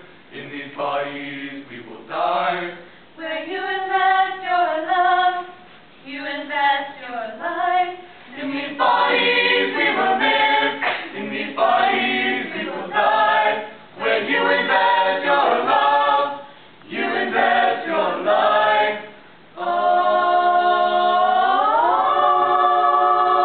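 Mixed-voice a cappella choir singing unaccompanied, in phrases broken by short pauses. Near the end the voices join in one long held chord that slides up in pitch and is sustained.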